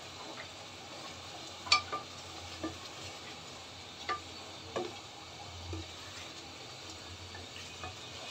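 Wooden spoon stirring chicken rezala in a metal cooking pot, knocking against the pot about six times, over a steady sizzle of the thick sauce simmering.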